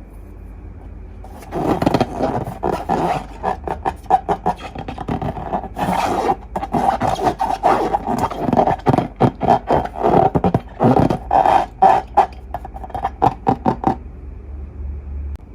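Slime being squeezed and mixed by hand: a quick, irregular run of squelching and scraping sounds. It starts about a second and a half in and stops near the end.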